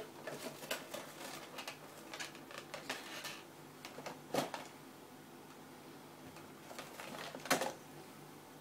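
Cardboard boxes knocked and scraped over carpet as a cat bats and shoves them: a run of light taps and scuffs over the first few seconds, another knock about four and a half seconds in, and a louder one about seven and a half seconds in.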